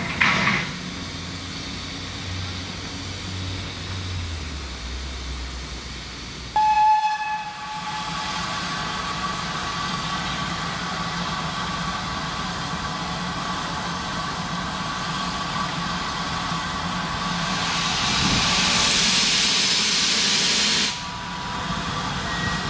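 Railway train: a low droning note that drops in pitch after about three seconds. About seven seconds in there is a break, then a short high tone, then steady high tones over a rumble. A loud hiss of steam starts about seventeen seconds in and cuts off suddenly near the end.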